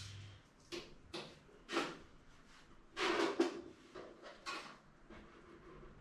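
Tools and small parts being handled on a workbench: several separate clunks and rustles, the loudest a longer clatter about three seconds in. A low hum cuts off just after the start.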